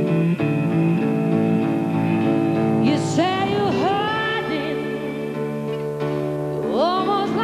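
Electric blues band playing live: slide guitar over bass and drums, with a sung vocal line coming in about three seconds in.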